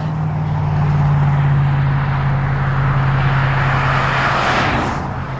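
A vehicle's steady low engine hum with road noise; a rush of noise swells about four seconds in and then eases.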